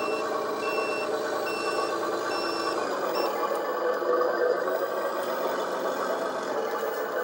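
The RC Scania truck's onboard sound module playing a simulated truck engine running, with its reversing beeper beeping a little less than once a second. The beeping stops a little over three seconds in while the engine sound carries on.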